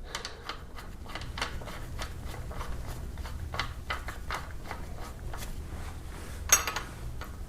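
Light, irregular metallic clicks as the Kia 2.4 GDI engine's crankshaft is turned slowly by hand with a wrench on its bolt to take the slack out of the new timing chain, with one sharper ringing metal clink about six and a half seconds in. A faint steady low hum sits underneath.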